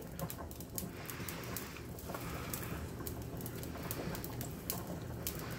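Soft, irregular wet crackling and squishing of seasoned ground meat being grabbed and worked into balls by hands in nitrile gloves in a stainless steel bowl.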